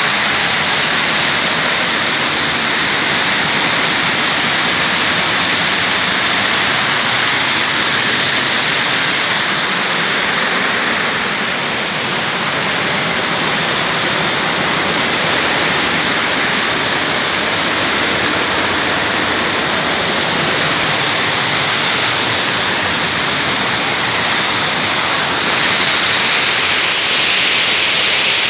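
Water pouring over a dam wall in a steady, loud rush, easing a little about halfway through and swelling again near the end.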